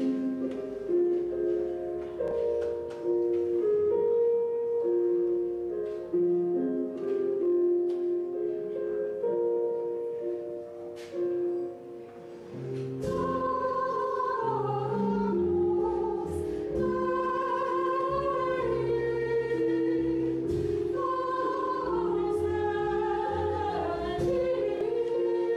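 Women's vocal ensemble with keyboard, double bass and drums performing a jazz choral mass. The first half is instrumental, held keyboard chords with light cymbal strokes. About halfway through the voices come in over low double-bass notes.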